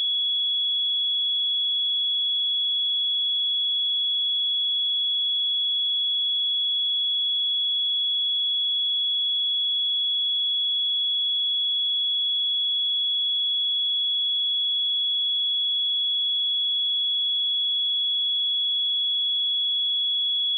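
A pure 3368 Hz sine-wave test tone, one steady high-pitched note held at a constant level with no change in pitch or volume.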